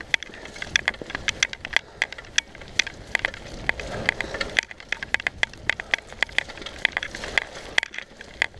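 Mountain bike rolling along a dirt trail strewn with leaves and twigs: steady tyre noise with many sharp, irregular clicks and rattles.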